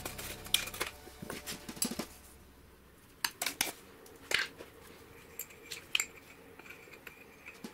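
Metal spoon and hands handling larva containers: a scatter of sharp clicks and taps as the spoon and a plastic container lid are set down and a glass jar is picked up, busiest in the first two seconds.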